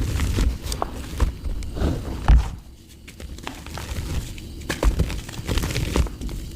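Lumps of dried mud crumbling and breaking apart, with irregular crackling breaks and a heavier thud about two seconds in.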